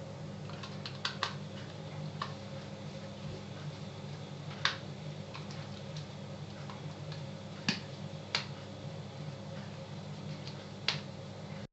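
Small screws being driven into the plastic case of a Mikma 115 electric shaver with a hand screwdriver: scattered light clicks and ticks of the screwdriver tip and plastic, a few seconds apart, over a steady low hum.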